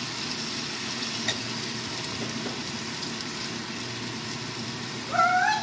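Teriyaki-sauced chicken and red pepper pieces sizzling steadily on a hot toaster-oven tray as the sauce is spread over them with a knife, with a light click about a second in. Near the end a cat meows briefly.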